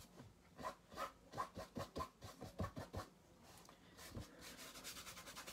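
Fingers rubbing and scratching wet acrylic paint across a canvas: faint, irregular scratchy strokes, then a quick run of rapid scratches near the end.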